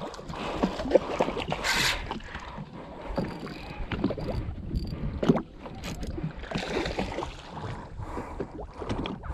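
Water splashing and lapping against a jet ski's hull, with scattered knocks and clicks from the rod and gear being handled.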